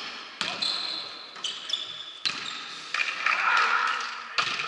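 A volleyball struck again and again in a rally: about five sharp hits, roughly one a second, each echoing in a large gym hall, with shoes squeaking on the court floor between them.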